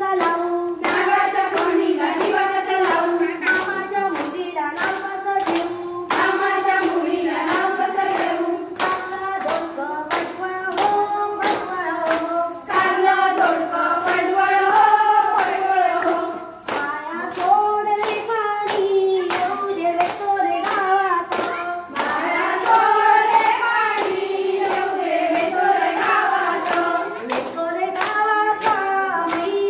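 Group of women singing a fugdi folk song together, kept in time by a steady beat of hand claps, about two to three claps a second.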